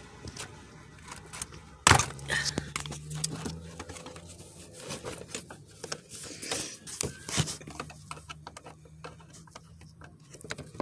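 Small clicks, scrapes and knocks of a car door's lock mechanism being worked by hand inside the door while someone tries to pop it out, with a sharp loud knock about two seconds in and another near seven and a half seconds.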